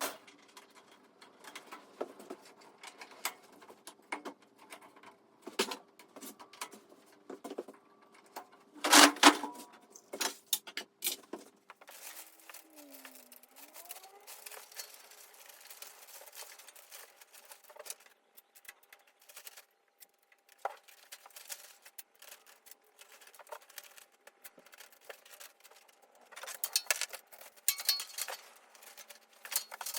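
Scattered clicks and clatters of parts and tools being handled during assembly, with a louder clatter about nine seconds in and another run of clatters near the end.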